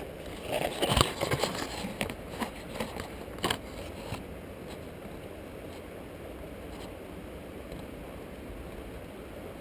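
Close handling noise from fishing tackle: a quick run of clicks, scrapes and crackles over the first four seconds, then only a steady faint outdoor hiss.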